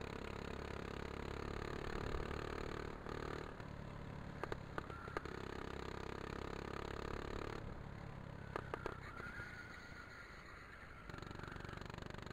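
Go-kart engine heard from on board, running steadily, its note changing and rising again as the kart lifts and accelerates through the corners. Two short clusters of sharp clicks come in, one near the middle and one about two-thirds through.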